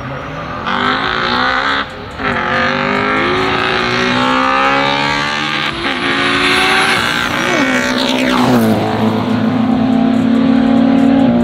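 Drag-racing cars accelerating flat out down the strip, engines climbing in pitch and dropping back at each gear change, with a sharp fall in pitch as they pass about seven to eight seconds in. A steady low drone follows to the end.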